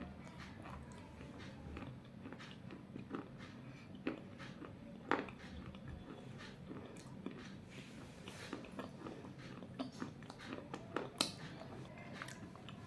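Pieces of a roasted clay bowl bitten and chewed, giving irregular sharp crunches, the loudest about five seconds in and again about eleven seconds in.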